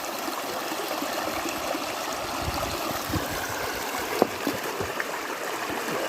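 River water flowing steadily, with one short sharp knock or splash about four seconds in.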